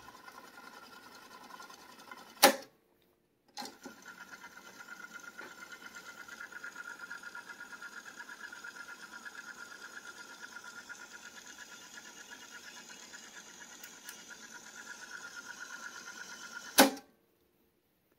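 Pioneer CT-F500 cassette deck's tape transport winding: a brief fast-forward whirr is cut off by a loud key clunk. After a short pause a click engages rewind, and the reels whirr steadily with a fast, even flutter for about thirteen seconds. A loud clunk near the end marks the rewind key releasing, as the deck's full auto-stop does when the tape is fully wound.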